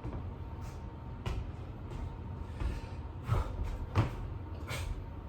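Dull thuds of hands and feet landing on the floor during burpees with push-ups: a handful of short knocks, under a second apart, with a steady low rumble beneath.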